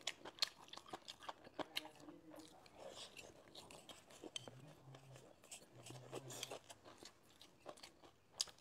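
Close-miked chewing of crisp stir-fried velvet antler mushrooms, with small crunchy clicks at irregular intervals.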